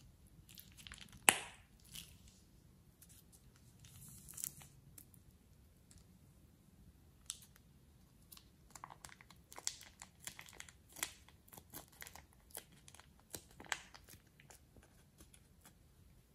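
Thin plastic piping bag crinkling and crackling as it is squeezed and handled, in scattered irregular crackles with one sharp snap about a second in and a denser run in the second half.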